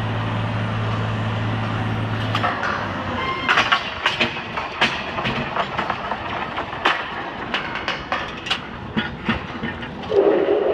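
Workover rig's engine running with a steady low hum that drops away about two and a half seconds in, then a string of irregular metal clanks and knocks from pipe being handled and latched in the derrick while tripping in.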